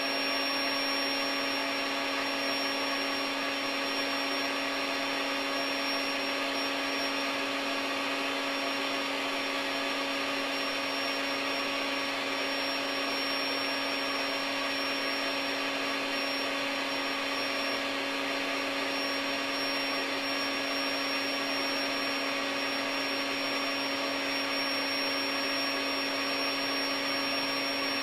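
Built-in electric pump of a SoundAsleep Dream Series air mattress running in deflate mode, sucking the air out of the bed. A steady motor hum with a thin high whine above it and a rush of air, unchanging throughout.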